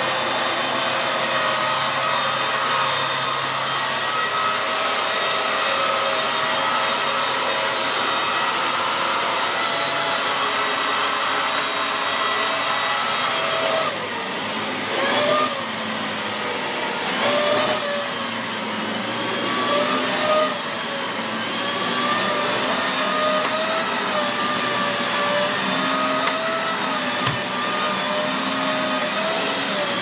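Dyson Big Ball Animal cylinder vacuum cleaner running with a steady motor whine. About halfway through it gets slightly quieter and the pitch starts to waver up and down as the floor head is pushed over carpet. One small click comes near the end.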